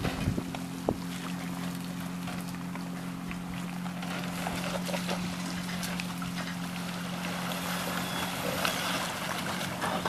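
Engine idling steadily, a low even hum, while a trailered boat is backed down a ramp into the water. There are a couple of sharp knocks in the first second, and the hum stops just before the end.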